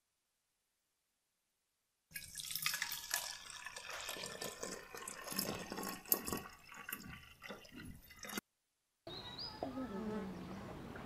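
Water splashing and pouring, busy with small clicks and knocks. It starts abruptly after about two seconds of dead silence and cuts off suddenly about six seconds later, followed by a fainter, quieter background.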